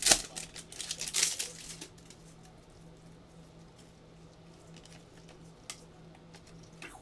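Gloved hands handling a foil trading-card pack and its cards: a sharp snap at the start and crinkly rustling for about two seconds. After that it goes quiet, with a faint steady low hum and one small click.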